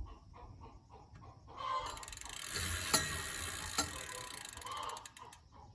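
Rapid mechanical clicking, like a ratchet or gear, for about three and a half seconds from a second and a half in, with hens clucking.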